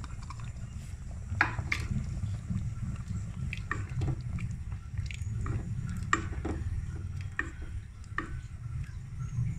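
Wooden spoon stirring cornflour-thickened chicken soup in a steel pot: wet sloshing with irregular knocks of the spoon against the pot, over a steady low hum.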